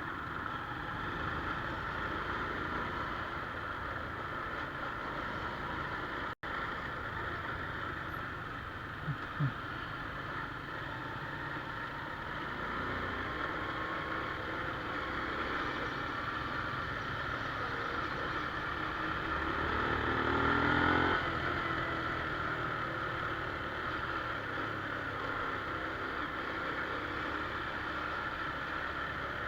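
Small motorcycle engine running with steady road noise, swelling briefly about two-thirds of the way through as it speeds up, and cutting out for an instant near the start.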